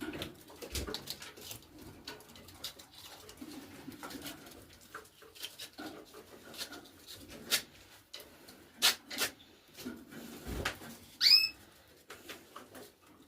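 Scattered sharp taps and clicks among caged birds, then one short rising bird call, the loudest sound, near the end.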